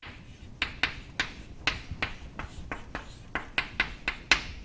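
Chalk writing on a chalkboard: a quick, irregular run of sharp taps and short strokes, about three or four a second, as letters are written.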